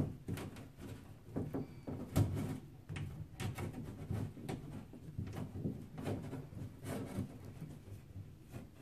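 Irregular small clicks, taps and knocks of hands fitting a brass retaining clip into the slot of a Moen shower valve cartridge, with the loudest knock about two seconds in.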